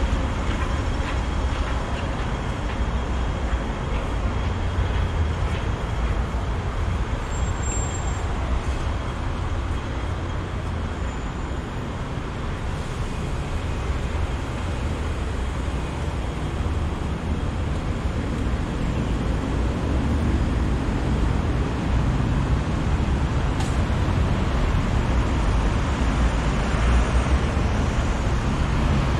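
Steady road traffic noise from cars and double-decker buses passing on a busy city road.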